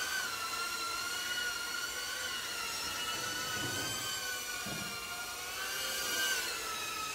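Small FPV racing quadcopters flying, their motors and propellers making a steady high-pitched whine whose pitch wavers up and down with throttle. The whine rises and brightens briefly about six seconds in.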